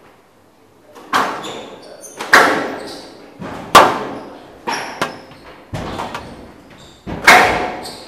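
Squash rally: a series of sharp cracks as the rackets strike the ball and the ball hits the walls of the court, about seven hits at an uneven pace, each echoing in the hall. The hits start about a second in.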